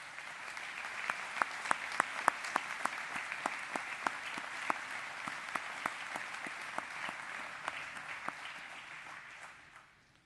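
Audience applauding: many hands clapping in a dense steady patter with some sharper nearby claps, fading out near the end.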